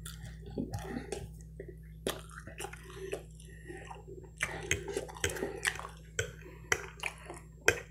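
Close-miked chewing and mouth smacking as a man eats a buttered dinner roll and fried chicken, with scattered sharp clicks of a metal fork on the plate.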